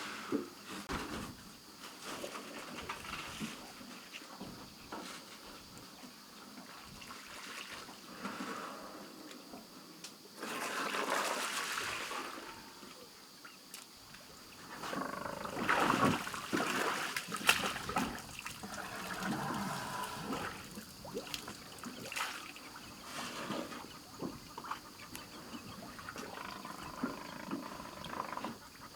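Elephants at the water: splashing and trickling water with irregular animal calls, louder in a few bursts near the middle.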